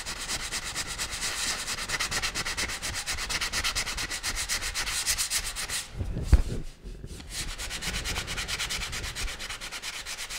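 Hand sanding of polyester feather-fill primer on a car dash panel, the sandpaper held flat under the palm and rubbed in quick back-and-forth strokes. The strokes pause about six seconds in with a brief low thump, then start again.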